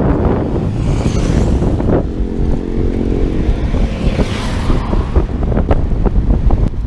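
Wind buffeting the microphone of a camera on a moving bicycle, with road traffic alongside. A vehicle's engine hum passes from about two seconds in, followed by a brief rising and falling hiss of another passing vehicle.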